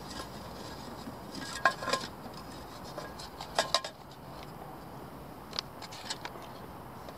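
Small metal camping pot and its lid being handled on a stove: a few sharp metallic clinks with a brief ring, in clusters about one and a half to two seconds in, again near four seconds, and once more near the end.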